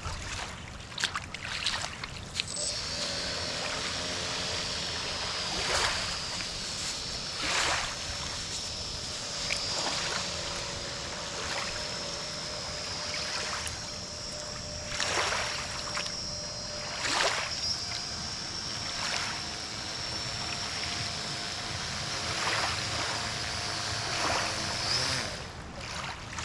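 Small electric drive motor and propeller of a homemade radio-controlled boat running with a steady high whine, starting about two seconds in and cutting off near the end. Lake water laps and splashes underneath.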